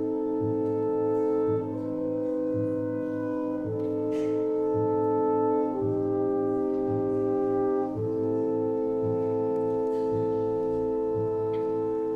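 Symphony orchestra playing a slow passage: sustained chords that change about every two seconds over a steady low pulse.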